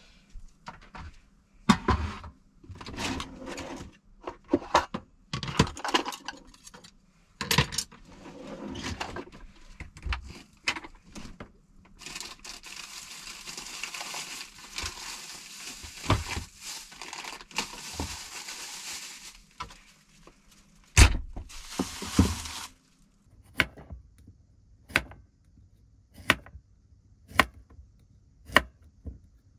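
Rustling and knocking of things being handled, then a steady hiss lasting several seconds. In the last few seconds a kitchen knife slices a cucumber on a plastic cutting board, one sharp chop about once a second.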